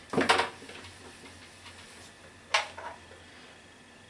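Whiteboard marker squeaking and tapping against the board in a short burst at the start, then a single sharp click about two and a half seconds in.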